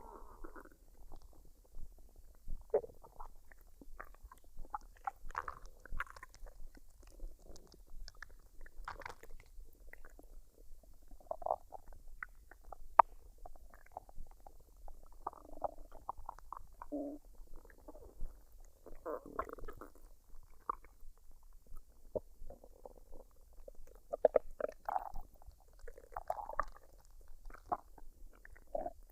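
Human stomach gurgling as it digests a full meal: irregular short bubbling gurgles and rumbles with no steady rhythm, broken by a few sharp pops, the loudest near the middle.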